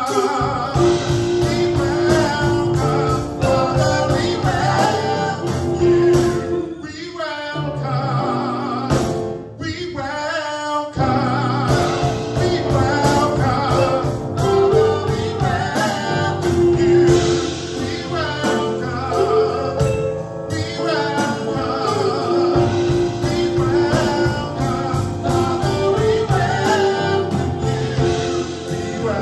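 Gospel praise-and-worship music: a band playing with singers leading a worship song.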